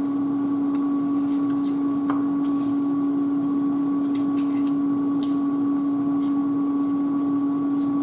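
A steady machine hum holding one pitch, with a few faint clicks from a small plastic garlic container being pried open.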